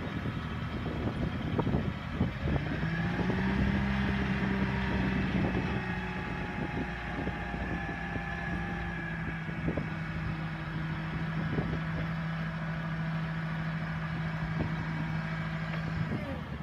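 Propane forklift engine running, its speed rising about three seconds in and then held steady while the hydraulics raise the mast, dropping back near the end.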